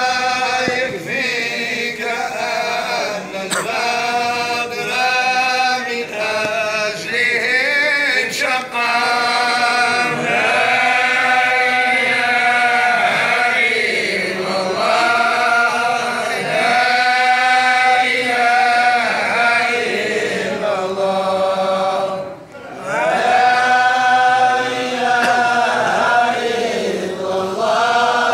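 A group of men chanting Sufi devotional praise (madih) without instruments, in long drawn-out phrases, with a brief pause for breath about two-thirds of the way through.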